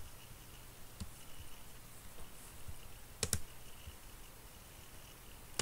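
Computer mouse clicking, faint and sharp: a single click about a second in and a quick pair a little past three seconds.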